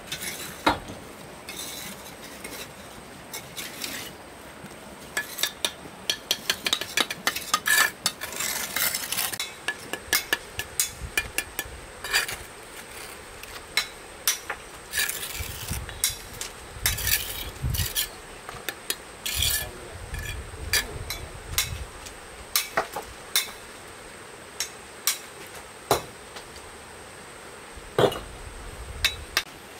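Irregular clatter of utensils and kitchenware: sharp clinks, knocks and scrapes against pots and dishes, coming in quick clusters with short pauses between.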